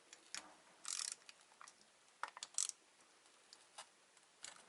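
Small metal hand tools and Torx bits clicking and rattling as they are handled on a work table: scattered single clicks with a few short rattles, the longest about a second in.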